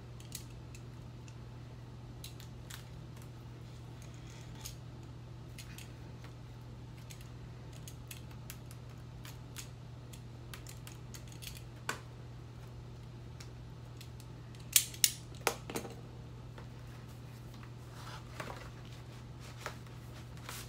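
Shrink-wrap on a vinyl LP jacket being slit and peeled with a small blade: scattered faint crackles and clicks of plastic, with a few sharp snaps about two-thirds of the way through. A steady low hum runs underneath.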